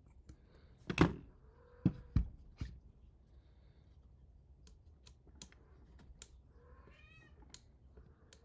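Four sharp knocks in quick succession, starting about a second in, then a few faint clicks. Near the end comes a short rising-and-falling animal call, meow-like.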